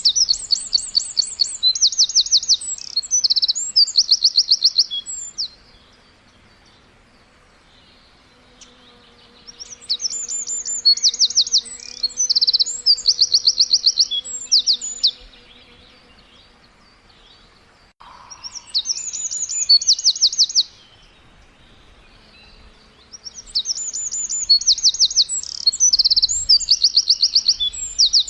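Songbird chirping in four bouts of rapid, evenly repeated high notes, each bout lasting a few seconds with short quiet pauses between them.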